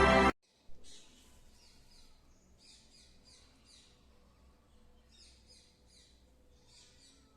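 Background music cuts off abruptly just after the start; then parrots chirp faintly, short high calls coming in quick clusters of three or four, repeated several times.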